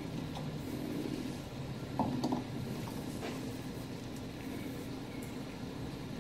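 Faint clicks and light knocks of a brass wheel from an Ansonia clock movement being lifted off its pivot and out of the plate by a gloved hand, over quiet room tone. A short cluster of taps comes about two seconds in.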